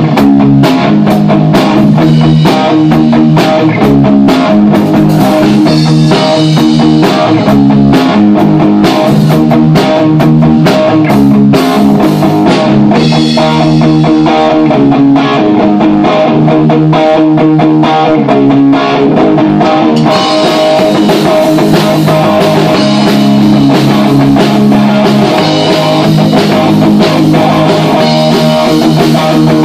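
Live rock band playing loudly on electric guitar, bass guitar and drum kit. The cymbals drop out for a stretch in the middle and come back in about twenty seconds in.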